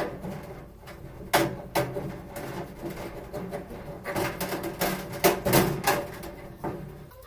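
Irregular clicks and knocks, with a faint steady hum underneath.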